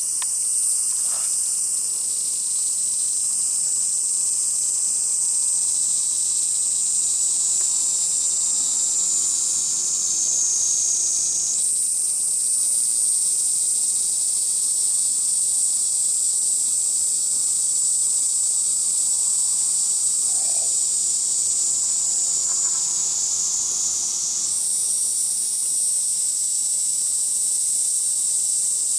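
Loud, steady high shrilling of cicadas in a dense chorus. Its pitch sags slowly and jumps back up twice, about a third and about five-sixths of the way through.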